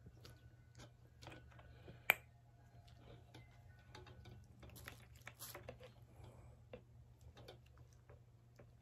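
Faint handling noise from hands and a flannel sleeve working on a mini greenhouse's green tubular frame: scattered light clicks and rustles, with one sharp click about two seconds in. A low steady hum runs underneath.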